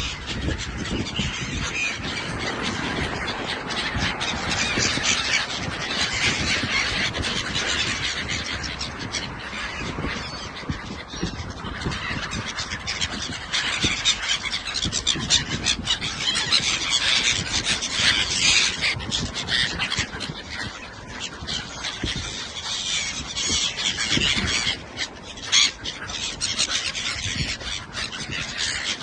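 A flock of gulls calling, many squawks and cries overlapping without a break, over a steady low rush of noise.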